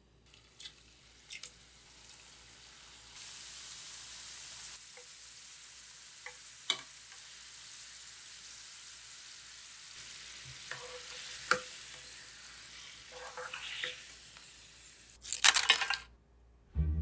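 Thin potato slices deep-frying in hot oil: a steady hissing sizzle that builds over the first few seconds, with wooden chopsticks now and then clicking against the slices and pan as they are stirred. A brief, louder burst of noise comes near the end.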